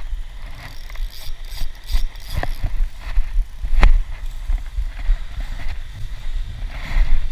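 Low, uneven rumble of wind buffeting a handheld camera's microphone, with knocks and rustles from the camera being handled while walking over grass; the two sharpest knocks come about two and a half and four seconds in.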